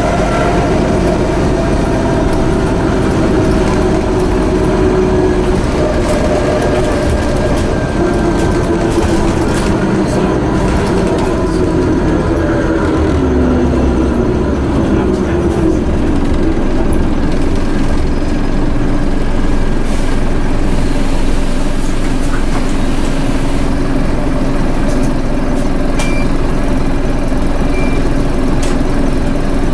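Scania OmniCity bus heard from inside the saloon: the whine of its broken differential over the Scania DC9 engine and drivetrain, falling in pitch as the bus slows about halfway through, then settling into a steadier low drone. Two short faint high beeps near the end.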